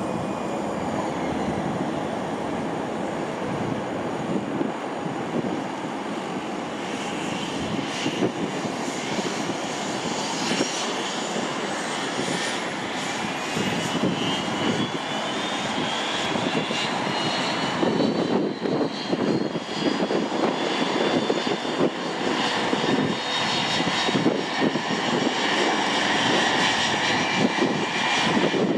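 Jet airliner engines running with a steady noise, their turbine whine climbing in pitch and the noise growing louder through the second half.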